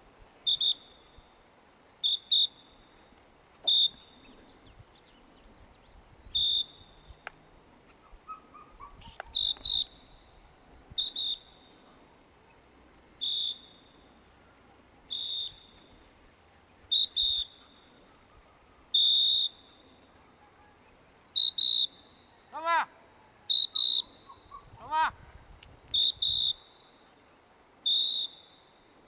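Short, high electronic beeps at one pitch, repeating about every one to two seconds: a bird-dog beeper collar on a pointer. Two short calls are heard a few seconds before the end.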